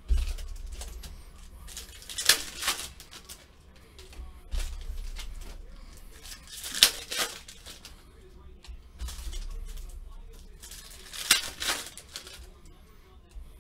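Foil trading-card pack wrappers being torn open and crinkled by hand, with three sharp rips about four to five seconds apart and softer handling sounds between them.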